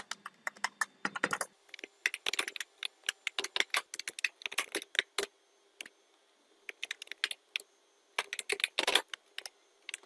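Typing on a computer keyboard: irregular runs of key clicks with short pauses between them, and a longer pause of about a second just past the middle.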